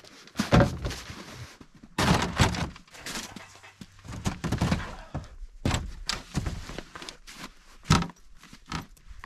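Plastic storage tote and bags being loaded into a hard plastic cargo-carrier lid used as a sled: a series of hollow thunks and knocks with rustling in between, the sharpest knock near the end.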